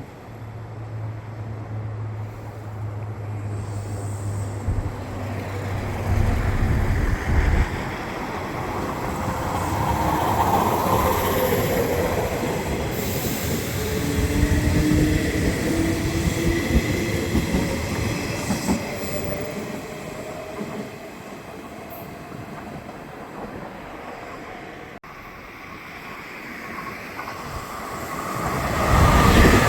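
Electric commuter train on the Nishitetsu Tenjin-Ōmuta Line running past, its wheels clattering on the rails and its motors whining and rising slowly in pitch. The sound swells and fades, and a fresh loud rumble begins near the end.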